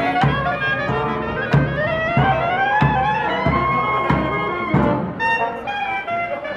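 Small jazz band with sousaphone, saxophone and clarinet playing live over a steady low beat, a melody line rising in pitch through the middle.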